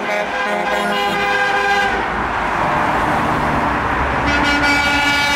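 Vehicle horns honking from passing convoy traffic. Horn blasts sound over the first couple of seconds, a rush of passing-vehicle noise follows, and another long horn blast starts about four seconds in.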